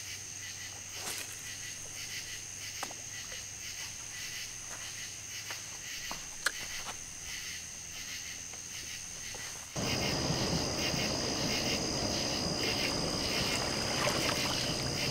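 Night insects calling in a steady high-pitched chorus, with a few faint clicks and taps. About ten seconds in the sound changes abruptly to a louder chorus at a slightly lower pitch over a steady hiss.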